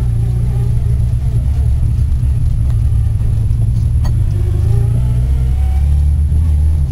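Rally car engine running hard under load, heard from inside the cabin as a loud, steady low drone, with a brief sharp click about four seconds in.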